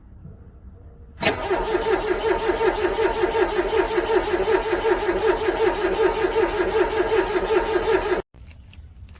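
Car engine cranking on the starter in the cold, with an even rhythmic chug of about five to six compression beats a second. It starts suddenly about a second in and cuts off abruptly near the end without the engine catching.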